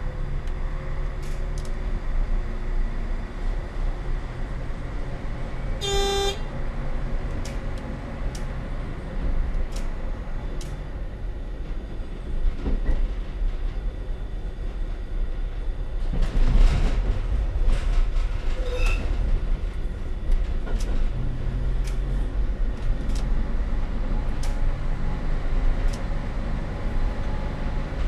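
Y-train diesel railcar running steadily, heard from the driver's cab as a low drone with scattered clicks. About six seconds in there is a short, high-pitched tone.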